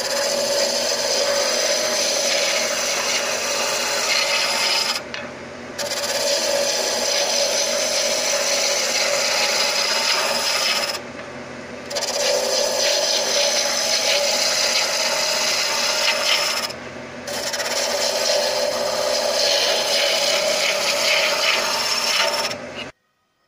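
Gouge roughing down a spinning spalted birch blank on a wood lathe: a continuous rough, scraping hiss of shavings being torn off. The cut lets up briefly three times, with the lathe still running, and stops abruptly near the end.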